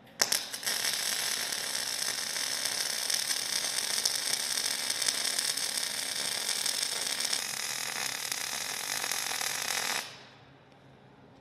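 Wire-feed (MIG) welder arc crackling steadily through one continuous weld for about ten seconds, welding tow-ring brackets to a steel bumper. It strikes with a few sharp pops and cuts off abruptly.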